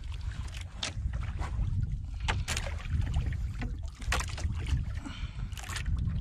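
Wind buffeting the microphone and water sloshing against a small outrigger boat, a steady low rumble. Several short, sharp knocks and slaps sound over it, spaced about a second apart.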